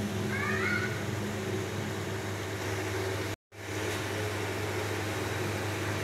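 A steady low mechanical hum, cutting out for a moment about three and a half seconds in.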